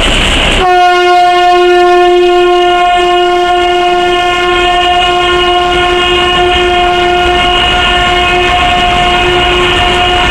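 Narrow-gauge diesel locomotive's horn giving one long, steady blast that starts about half a second in and is held on, over the running noise of the passing train. It warns people walking along the track to keep clear.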